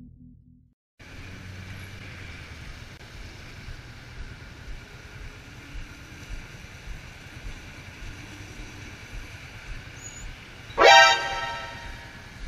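Motorcycle engine idling at a standstill over a steady traffic background; near the end a vehicle horn honks once, loud and about a second long.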